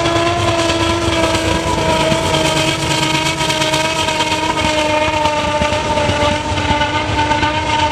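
A CN C40-8W diesel locomotive's horn sounds one long steady blast as it passes, its pitch sagging slightly, over the heavy low rumble of the engine. The filmer calls the engine's noise a weird thumping and takes it for a sign that something is wrong with the engine, which is throwing fire from its exhaust.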